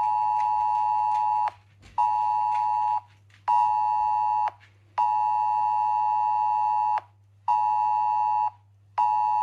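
Smartphone sounding the UK Emergency Alert attention tone, two close pitches played together as one harsh alarm. It pulses in a long, short, short pattern, twice over, marking a test of the Emergency Alerts system.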